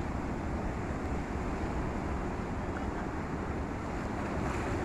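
Steady wind rumbling on the phone's microphone over choppy sea surf washing against shore rocks.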